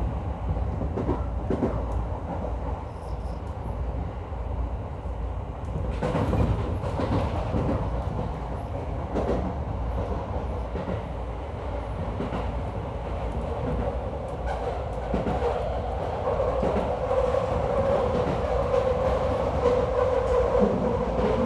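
Sotetsu Main Line commuter train running, heard from the driver's cab: a steady rumble from the running gear, with wheels clicking over rail joints now and then. A steady tone joins in the last few seconds as the sound grows louder.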